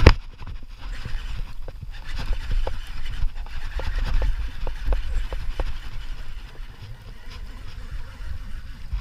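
Low rumble of wind and handling on a GoPro Hero 4's microphone during a fight with a bass, with one loud knock at the start and a run of light, irregular clicks a couple of seconds in.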